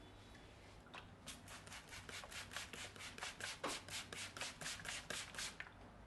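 Brisk back-and-forth rubbing on the scalp and hair during a head massage, about five strokes a second. It starts about a second in and stops near the end.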